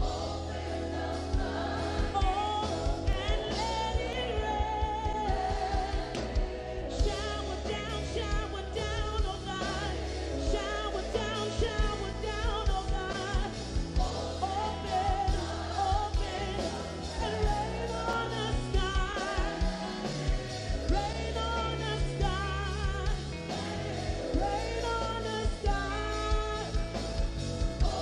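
Live gospel worship music: a female lead vocalist singing over keyboard and band, with a choir behind her.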